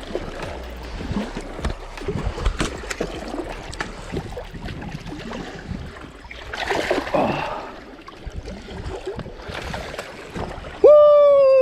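Water splashing and gurgling at the shoreline as a hooked bass is fought and brought in, with scattered knocks and rustles. Near the end a loud held tone of steady pitch, the loudest thing here, lasts about a second and drops in pitch as it stops.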